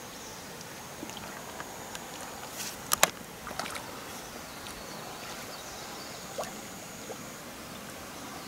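Light water splashing at the water's edge over a quiet outdoor background, with a few sharp clicks, the loudest about three seconds in.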